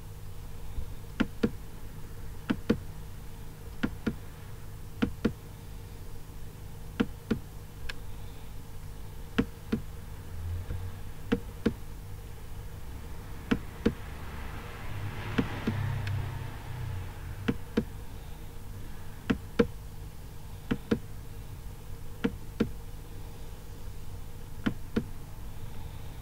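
Computer mouse button clicking, mostly in quick press-and-release pairs every second or two, over a steady electrical hum.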